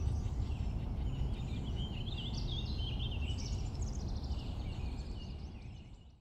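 Birds chirping and calling over a steady low outdoor rumble, fading out just before the end.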